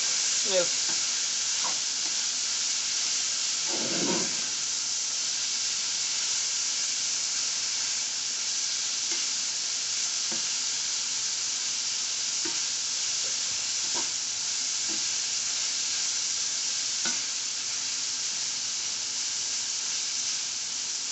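Saltfish, onions, sweet peppers and scallion sizzling steadily in a frying pan, with a spatula stirring through it and giving short faint scrapes and taps against the pan now and then.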